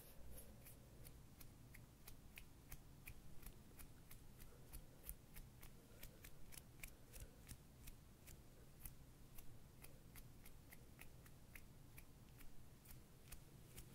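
Faint, crisp clicking close to the microphone, about three clicks a second and slightly irregular, as hands work near the microphone.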